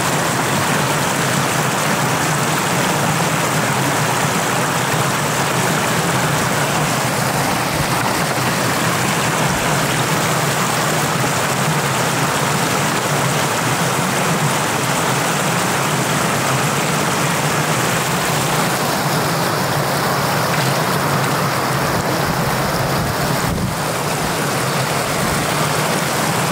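Shallow floodwater rushing steadily over a flooded field around a man's boots and a bamboo fish trap, a continuous even rush of water.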